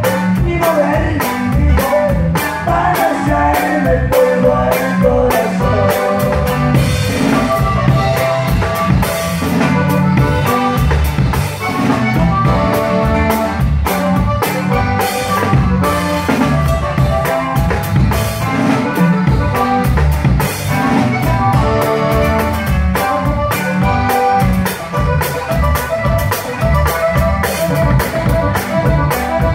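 Live band music, with a drum kit loud and close: kick, snare and cymbals keep a steady beat while other instruments play a melody over it.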